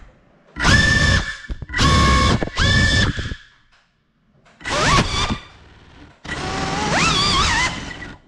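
GEPRC CineLog35 cinewhoop drone's brushless motors whining in about five short throttle bursts with quiet gaps between. The last burst is the longest, its pitch rising and wavering.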